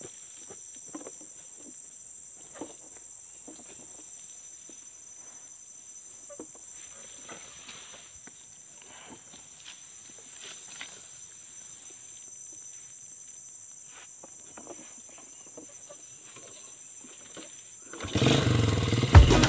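Steady high-pitched drone of insects, with faint scattered rustles; a much louder sound cuts in near the end.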